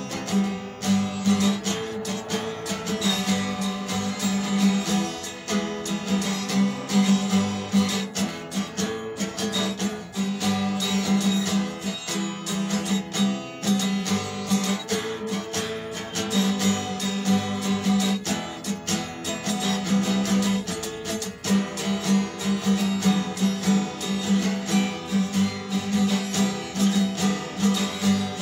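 Acoustic guitar strummed in a steady rhythm, the chords changing every few seconds.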